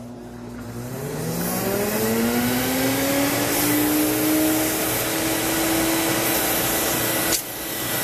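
Sirena water-filtration vacuum's motor spinning up, a rising whine that levels off after about three seconds, with air rushing from its exhaust through the hose as it inflates a balloon. A short click near the end, where the whine drops away.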